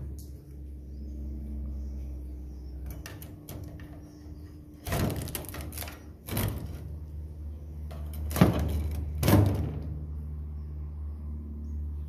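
A long pole-mounted scraper scrapes and knocks against a wooden roof beam as swiftlet nests are pried loose into a wire net catcher. It comes in several short scrapes and knocks, the loudest in the second half, over a steady low hum.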